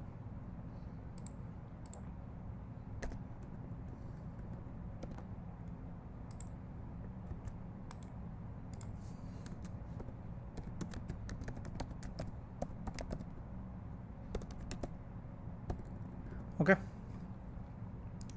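Typing on a computer keyboard: scattered key clicks that thicken into quick bursts about two-thirds of the way in, over a steady low hum. A brief voice sound near the end is the loudest moment.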